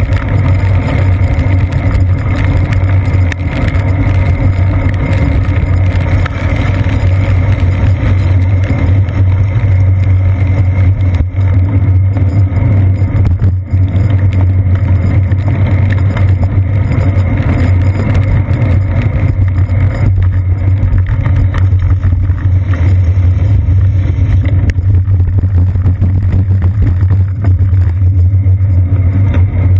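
Steady low rumble of a bicycle ride on wet city streets, picked up by an action camera mounted on the seat post: wind and road vibration heard through the camera's sealed waterproof housing. It stays loud and even throughout.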